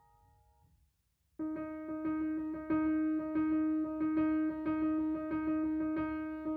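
Background piano music: a held note fades out, a short gap follows, then one note is struck over and over, about three times a second.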